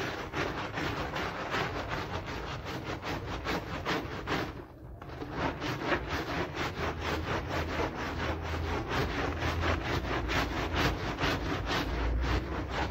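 Stiff hand brush scrubbing a soap-foamed, wet rug, with rapid wet back-and-forth strokes at about four a second. The scrubbing pauses briefly about five seconds in, and a low rumble runs underneath.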